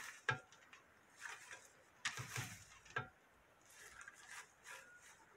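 Faint, intermittent rustling of fresh wild greens, stonecrop and wild water dropwort, being handled and lifted by the handful from a plastic colander into a glass dish, in several short soft bursts.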